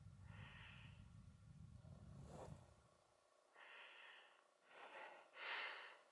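Faint breathing: soft puffs of breath, one near the start and then a few in quick succession in the second half, over a low rumble in the first half.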